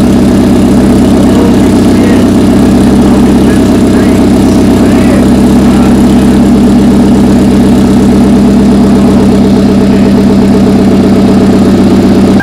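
Big-turbo Hyundai Genesis Coupe 2.0T's turbocharged four-cylinder engine idling steadily, running again after a new wiring harness went in.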